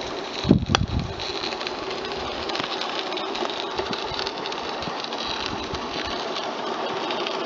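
Small live-steam garden-railway locomotive running with a steady hiss and rattle, with a louder knock about half a second in.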